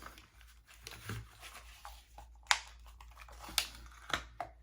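Handling of a small AirPods case and its packaging: crinkling with a few sharp clicks, the loudest about two and a half and three and a half seconds in.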